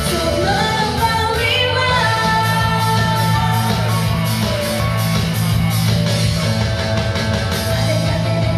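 A woman singing a J-pop song live into a microphone over loud backing music, her voice gliding up and down in a sustained melody.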